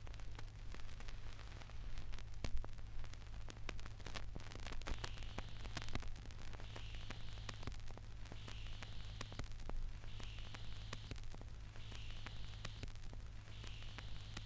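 Vinyl LP surface noise in the unrecorded groove between songs: crackle and scattered clicks over a steady low hum. From about five seconds in, a soft hiss comes back about every 1.8 seconds, once per turn of the record at 33⅓ RPM.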